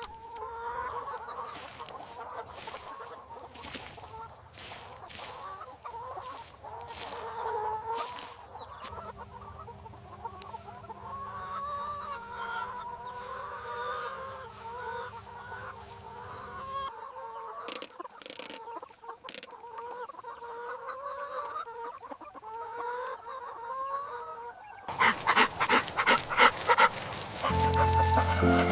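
A flock of hens clucking, with many short, wavering calls overlapping. About three seconds before the end, a louder, rapidly pulsing sound takes over.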